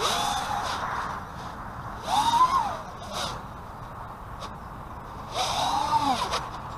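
A 5-inch racing quadcopter's brushless motors (RCX RS2207 2400KV on 4S, spinning 5-inch tri-blade props) whining in three throttle bursts: at the start, about two seconds in, and about five and a half seconds in. Each burst rises and then falls in pitch, with a steady rush of air between them.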